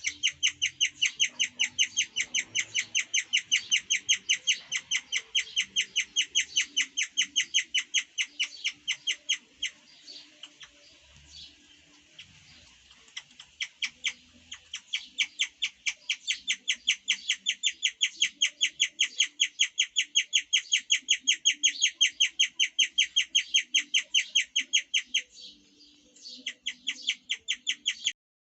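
Guinea pig chirping: a fast, even run of short, high chirps, about five a second, broken by a pause of a few seconds about ten seconds in and a brief break near the end.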